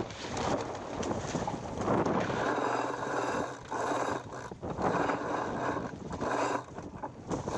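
Sailboat sheet winch and blocks working as a sheet is hauled in, a whirring, ratcheting run repeated in about three pulls, with wind on the microphone.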